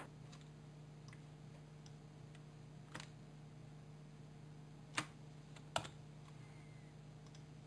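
Near silence: faint room tone with a low steady hum, broken by a few sharp computer mouse clicks, spaced irregularly, the loudest about five seconds in.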